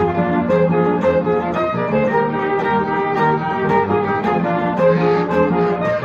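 A Mexican string ensemble of two violins, cello, double bass and guitar playing a jarabe, the bowed melody over a steady rhythmic pulse.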